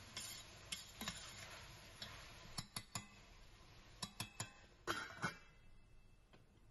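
A utensil stirring curry onions and tomatoes in a saucepan, knocking and scraping against the pan in about a dozen sharp taps, some in quick groups of two or three, over a faint hiss that fades out near the end.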